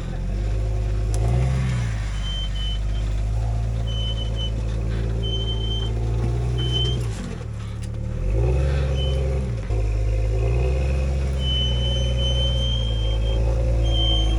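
Off-road 4x4's engine working a rock crawl, running low with repeated short blips of throttle that rise and fall in pitch, several of them in the middle of the stretch. A thin high whine comes and goes in short spurts over it.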